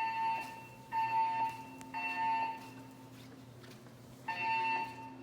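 Siemens MXL-V fire alarm system's speakers sounding the temporal-three evacuation tone: three half-second beeps a second apart, a pause of about two seconds, then the first beep of the next set near the end.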